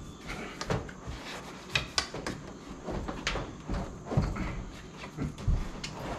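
A dishwasher being pushed and shifted in its under-counter opening: irregular knocks and clunks of its body against the cabinet and floor, with a few sharper clacks.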